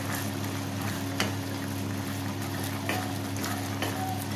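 A spoon stirring thick okra gojju simmering in a pan, with a few short clicks of the spoon against the pan over a steady low hum.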